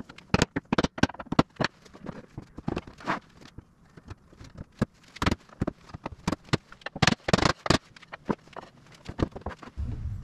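Irregular wooden knocks and clatter of mahogany door rails and stiles being worked together as tenons are seated in their mortises during a dry fit. A steady low hum starts near the end.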